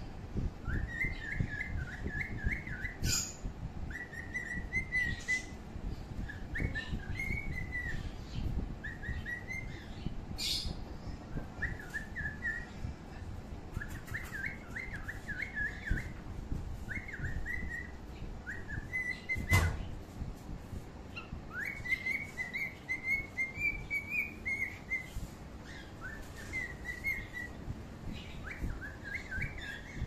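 Bird chirping: short bursts of quick, wavering high chirps repeated every second or two, over a low rumble, with a sharp click about two-thirds of the way through.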